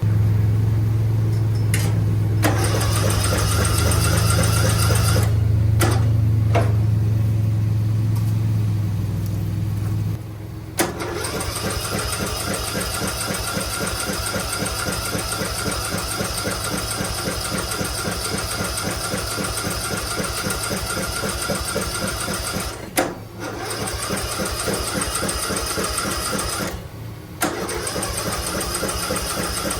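Riding lawn mower's 13 hp engine being cranked over by its electric starter in several tries with short pauses, without catching.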